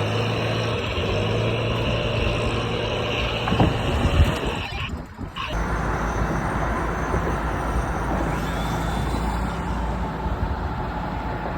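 Engine of construction machinery running steadily, with a couple of knocks about three and a half and four seconds in. About five seconds in the sound cuts briefly and gives way to a deeper steady rumble.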